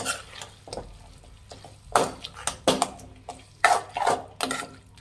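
Metal spatula scraping and knocking against a metal kadai while stirring thick mutton masala. A few light clicks at first, then from about two seconds in a quick run of sharper scrapes and clanks.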